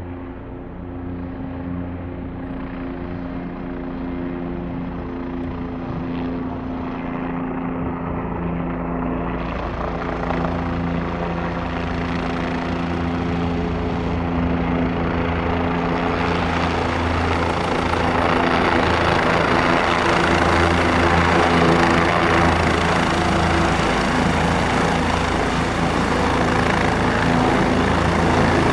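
Bell 407 helicopter's turbine and four-blade main rotor running: a steady low hum under a rushing noise that grows steadily louder.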